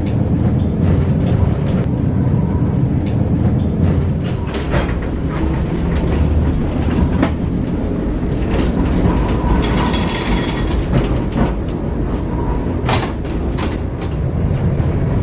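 Vintage electric tram running on its track, heard from inside the car: a steady rumble of the wheels with frequent clicks and knocks over the rails. A brief hiss comes about ten seconds in.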